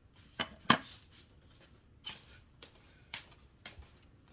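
Slime being squeezed and poked by hand, giving a string of short, sharp pops and clicks, about six in all, the loudest one a little under a second in.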